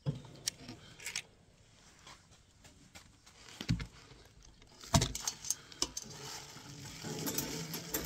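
Handling sounds: scattered light clicks and clinks, with two dull knocks around the middle and busier clinking near the end.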